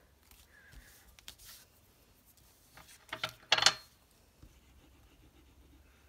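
Cardstock pieces being handled and set down on a craft mat, with small taps and paper rustles. A short, louder rustle and knock comes a little past halfway.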